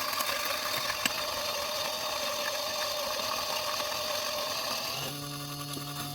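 Electric coffee grinder motor running while grinding beans, a steady whirring with a gritty texture. About five seconds in the sound changes to a cleaner, steadier hum as the beans run through.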